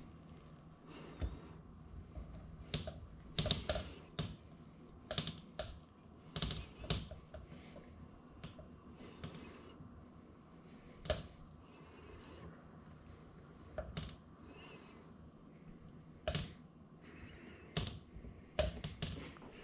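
Irregular light clicks and knocks of a knife cutting raw beef on a cutting board, a few sharper taps scattered throughout.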